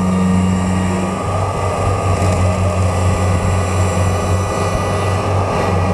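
Kubota combine harvester's diesel engine running under load as the machine strains to pull itself out of deep mud; its steady drone changes note about a second in.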